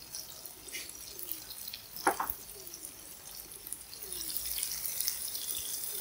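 Strips of fresh tofu deep-frying in hot oil, a steady sizzle full of small crackles that grows louder about four seconds in as they fry crisp. A short knock about two seconds in.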